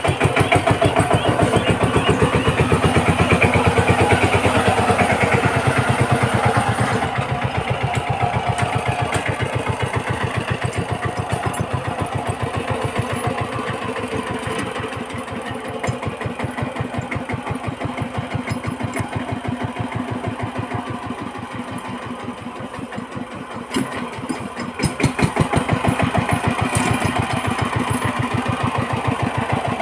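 A small engine running steadily with an even, rapid beat. It is loudest in the first few seconds, eases off through the middle and picks up again near the end.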